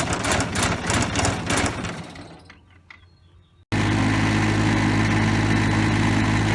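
Bolens diesel tractor engine running roughly on its first start after an oil change, then dying away over a second or two. About halfway through, a steady, even hum starts abruptly.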